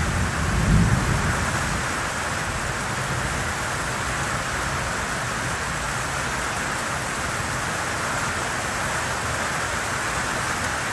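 Heavy tropical-storm rain pouring down steadily, with a short low rumble about a second in.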